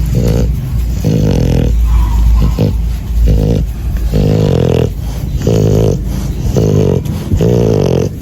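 An animal, dog-like to the ear, giving a run of short pitched calls, about one a second, over a steady low rumble.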